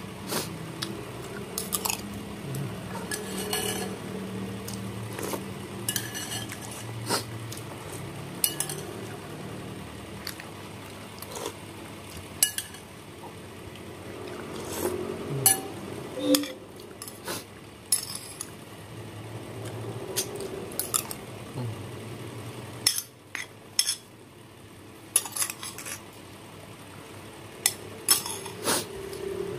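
Metal spoon clinking and scraping against a glass bowl while soup is eaten: irregular sharp clinks scattered throughout.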